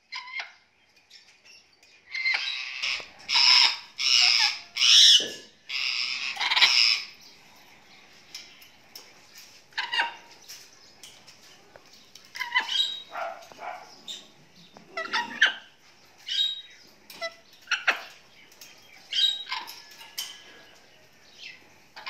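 Pet parrots calling: a loud run of harsh, high squawks for about five seconds starting about two seconds in, then short scattered chirps and calls.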